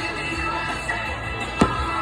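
Music playing, with a single sharp firework bang about one and a half seconds in.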